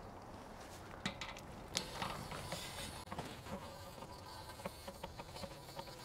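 Tank-rinsing wand flushing sediment out of an RV water heater tank through the anode-rod port: faint spattering of water, with a few sharp clicks of the metal wand at the tank opening about one and two seconds in.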